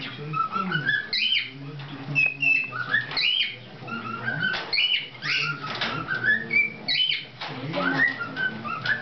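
Male cockatiel singing its showing-off song: a string of short whistled phrases that rise and fall in pitch, repeated again and again, with a few sharp chirps between them.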